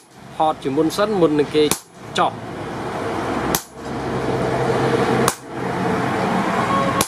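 Heavy hammer blows on a top tool held against a red-hot axe blank on the anvil, hollowing the blank before the eye is drifted; four sharp strikes about every second and a half to two seconds, over a steady mechanical hum.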